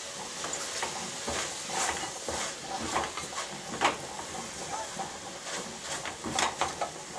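Wooden spoon stirring browned ground meat in a pot: irregular scrapes and knocks against the pot, a louder one about four seconds in, over the steady sizzle of the meat frying.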